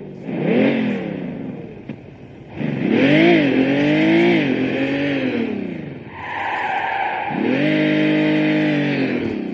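Remote-control car sound module playing a simulated car engine revving: three revs whose pitch climbs and falls, the last held steady for about a second before dropping away. A steady hiss sits above the engine tone.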